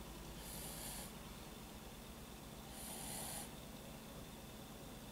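Soft snoring from a sleeper, with a hissing breath about every two and a half seconds.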